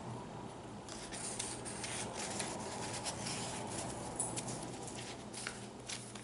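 Paper rustling and crackling as the pages of a handmade junk journal are handled and turned, a run of short, crisp rustles starting about a second in.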